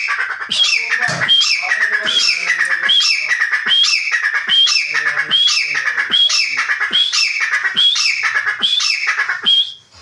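A grey francolin (teetar) calling: a rapid, steady series of loud, ringing notes, about three every two seconds, each with a sharp rising upslur. It stops just before the end.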